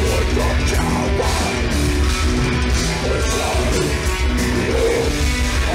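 Heavy metal band playing live at loud volume, with distorted guitars, bass and drums.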